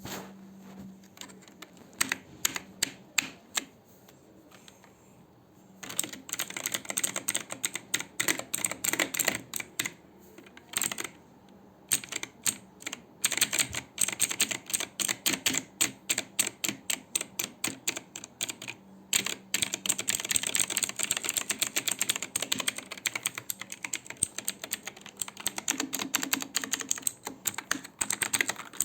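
Computer keyboard being typed on as a sound test: a few slow, scattered keystrokes, then fast, continuous typing from about six seconds in, broken by a couple of short pauses.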